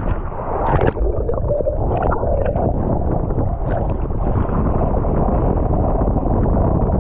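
Wind buffeting an action camera's microphone over the rush of water under a planing kiteboard. Brief splashes of spray come about one second in, at two seconds and near four seconds.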